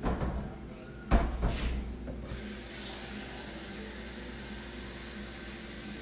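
Two knocks about a second apart, then water running steadily from a tap into a glass from about two seconds in.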